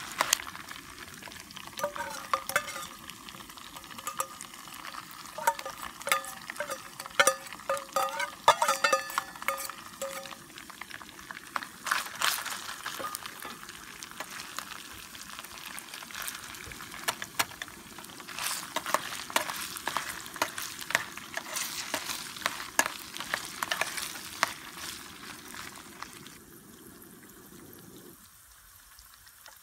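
Bacon and garlic sizzling and crackling in hot oil in an aluminium mess tin, with a metal ladle scraping and clinking against the tin as it is stirred, the clinks mostly in the first third. The sizzle drops away abruptly near the end.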